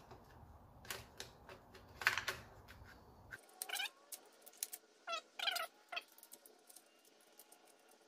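Scattered light clicks and clinks of a timing-chain guide and chain being handled and worked back into place on the engine. Three short squeaks come in the middle.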